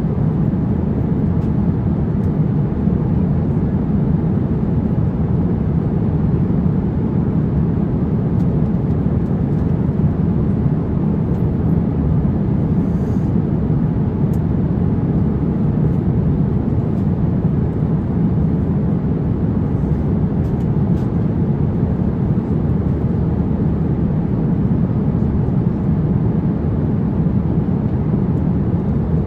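Steady low rumble of cabin noise inside an Airbus A350-900 airliner, engine and airflow noise running evenly without change.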